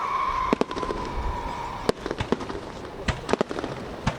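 Fireworks going off in a string of sharp bangs and cracks, several close together, with a high whistle held for about two seconds at the start.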